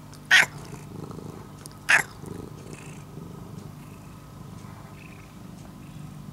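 Domestic cat purring steadily close to the microphone, with two short loud sounds about a third of a second and two seconds in.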